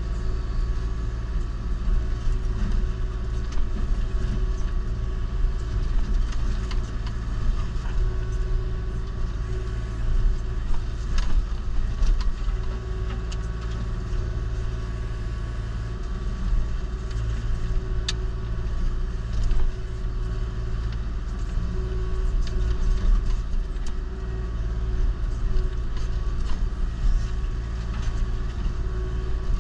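Kubota KX040-4 mini excavator's diesel engine running steadily with its hydraulic Indeco forestry mulcher head working, with scattered sharp cracks and snaps as brush and small trees are ground up.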